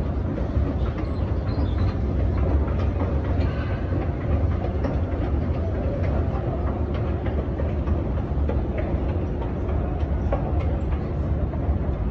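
Steady low machinery rumble with faint scattered clicks over it, unchanged throughout.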